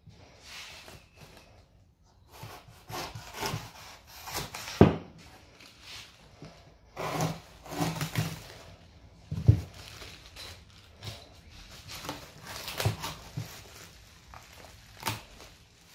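A knife cutting down the sides of a cardboard box, then the cut cardboard being pulled and folded flat: a run of irregular scraping and rustling strokes with a few sharp knocks, the loudest about five seconds in.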